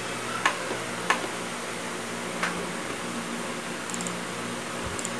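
About five short, sharp clicks spread out over a steady low hum and room hiss, the two loudest about half a second and a second in.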